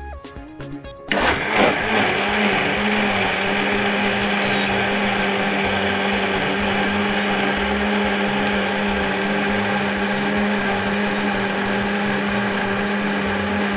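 Countertop blender starting about a second in and running steadily with an even hum, blending grated coconut and water into coconut milk.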